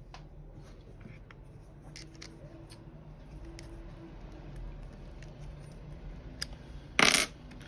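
Hands handling small tools and plastic doll parts on a work surface: scattered light clicks and taps, then a brief, louder scrape about seven seconds in.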